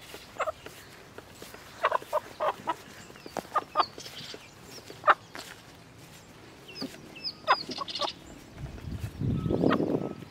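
A chicken held upside down by its legs squawking and clucking in short, irregular calls, with a burst of wing flapping near the end.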